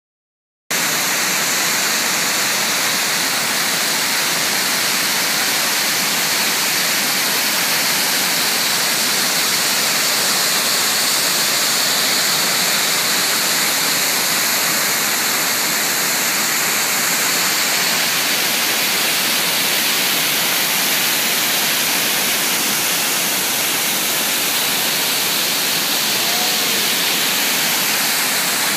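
Fukiware Falls, a wide waterfall, rushing in a steady, loud, unbroken hiss of falling water.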